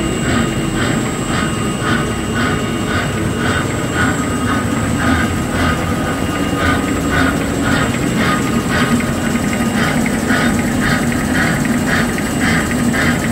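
XY-GU-20A box-drawing facial tissue folding machine running at production speed: a steady mechanical drone under a regular clatter repeating two or three times a second, with a steady high whine.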